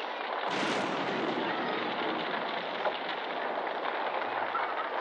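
A large fire burning: a dense rushing noise with scattered crackles, which swells and brightens about half a second in.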